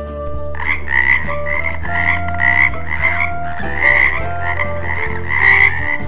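A frog croaking, a run of rapid rattling croaks about two a second that starts about half a second in. Background music with held notes plays underneath.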